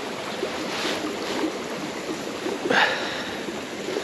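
River water running steadily through a shallow run, with a short louder rush of noise about three seconds in.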